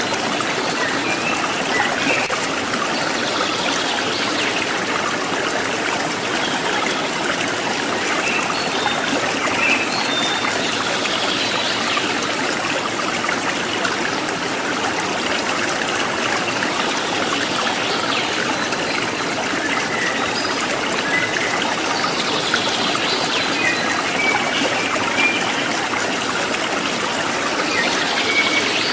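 Steady running water, like a stream, with brief high chirps now and then.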